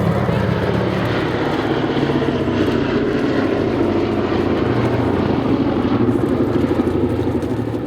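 Boeing B-17 Flying Fortress's four Wright Cyclone nine-cylinder radial engines and propellers running in a steady, throbbing drone.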